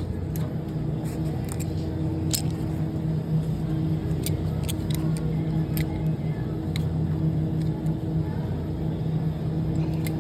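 Steady low mechanical hum, with scattered sharp metal clicks and taps from a hand tool working a torsion rod inside a glass freezer-case door.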